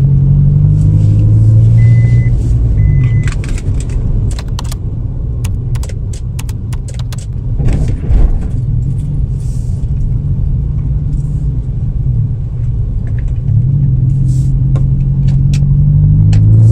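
Car driving, heard from inside the cabin: a steady low engine and road rumble whose pitch rises and falls with speed, with scattered sharp clicks and rattles. Two short high beeps sound about two and three seconds in.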